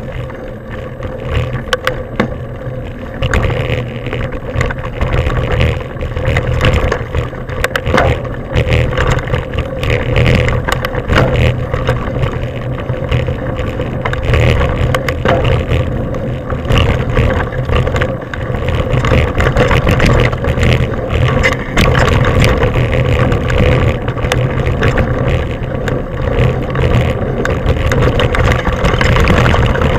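Mountain bike ridden fast down a dirt forest trail, heard from an on-bike or helmet action camera: heavy wind buffeting on the microphone and tyres rolling over dirt, with a steady hum underneath and frequent rattles and knocks as it hits bumps. It gets louder over the first few seconds.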